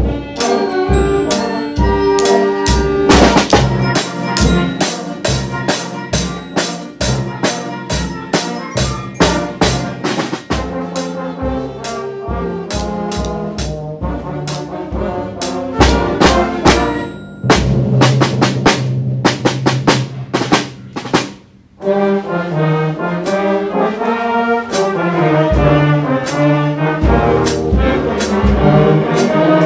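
Instrumental band music with brass horns over a steady drum beat. It cuts out for a moment about two-thirds of the way through, then comes back.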